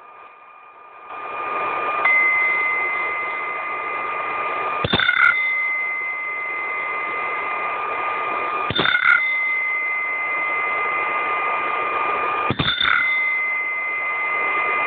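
Recorded boat sound effect played back through a small speaker: a steady rushing noise with a constant high whine, broken by a brief click about every four seconds.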